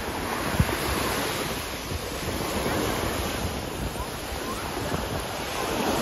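Small ocean surf breaking and washing up a sandy beach, a steady rushing wash, with wind buffeting the microphone in low rumbles. A brief thump about half a second in.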